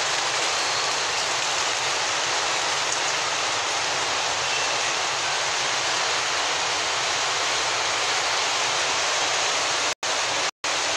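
Rain-swollen canal floodwater rushing in a steady torrent of noise. The sound cuts out twice very briefly near the end.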